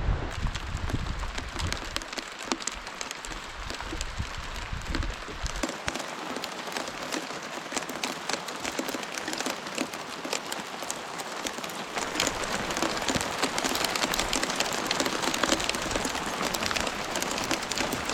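Hail and rain pattering down as a dense spray of small, sharp ticks, growing heavier about twelve seconds in.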